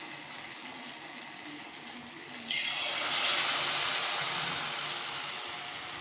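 Batter-coated chana dal and jaggery balls deep-frying in hot oil in a kadai, sizzling steadily. About two and a half seconds in, a fresh batter-dipped ball goes into the oil and the sizzle jumps suddenly louder, then slowly eases.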